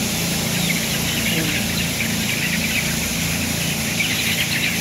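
A large flock of 20-day-old broiler chickens cheeping and peeping in many short high calls over the steady hum of a tunnel-ventilated poultry house's fans.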